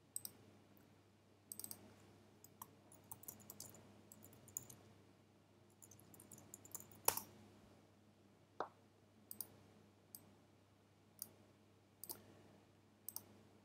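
Faint computer keyboard typing and mouse clicks: short runs of key taps and single sharp clicks at irregular intervals, over a faint low hum.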